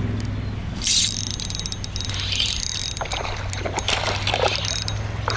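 Fishing reel being cranked, with quick irregular ticking and rattling, over a steady low hum. A short loud rush comes about a second in.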